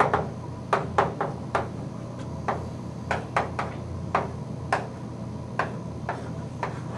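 Chalk tapping and scraping on a blackboard during writing: over a dozen sharp, irregularly spaced clicks as the chalk strikes the board.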